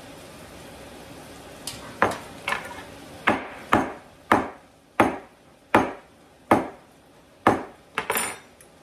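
A table knife rapped about a dozen times against a hard edge, each knock short and ringing, about one every half second to second, as bouillon paste is knocked off the blade.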